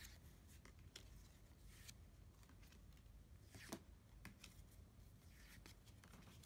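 Faint handling of Dragon Ball Super trading cards: soft clicks and brief rustles as cards are flipped through and set down, one slightly louder snap about three and a half seconds in.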